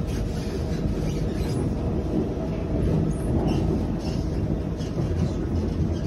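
Cabin running noise of a Kawasaki–CSR Qingdao Sifang C151B electric multiple unit travelling at speed: a steady, even rumble of wheels on rail, heard from beside the door.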